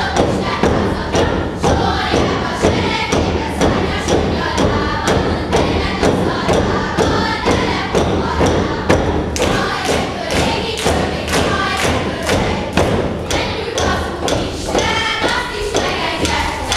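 Wooden regös staffs struck on a wooden stage floor in a steady beat, under a group chanting a Hungarian regös song, the winter-solstice good-luck chant of regölés.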